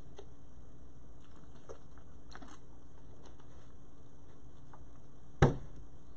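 Quiet room tone with a steady low hum and a few faint small clicks, then a single sharp knock about five seconds in.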